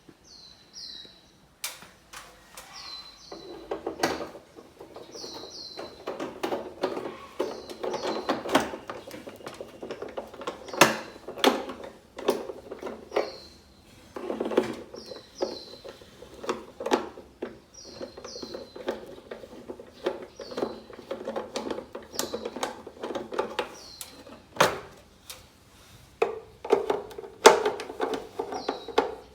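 A screwdriver taking out the screws of a distribution box's front cover: irregular metal clicks, knocks and scraping. A bird chirps in pairs of short falling notes every couple of seconds.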